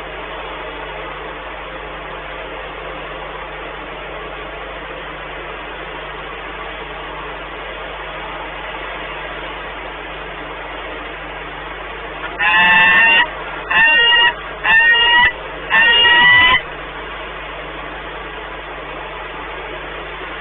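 Peregrine falcons calling at the nest: four loud, pitched calls with a wavering pitch in quick succession, about twelve seconds in. Under them runs a steady rushing noise with a low hum.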